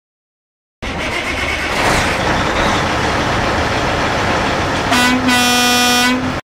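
A truck running loudly, starting suddenly about a second in, with one steady horn blast of just over a second near the end; both cut off abruptly.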